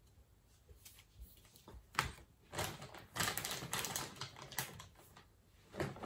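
Clear plastic packaging bag crinkling and rustling as it is handled, with scattered sharp clicks and taps. The crinkling is densest from about two and a half to five seconds in, after a single sharp click about two seconds in.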